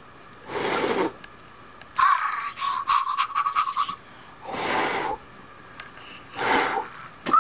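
Three short breaths blown at a Fingerlings Grimlings Junkyard the Pug interactive toy, with the toy answering between the first and second breath with a wavering electronic sound from its speaker lasting about two seconds.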